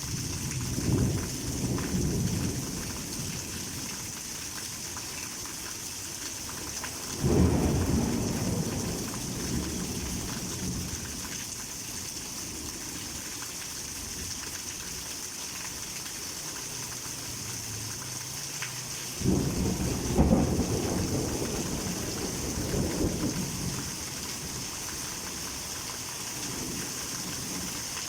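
Heavy tropical rain falling with a steady hiss, with three low rolls of thunder: one right at the start, one about seven seconds in, and the longest about nineteen seconds in.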